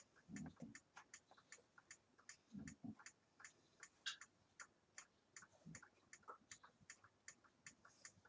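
Near silence with quiet, regular ticking, about four ticks a second, and a few faint low sounds.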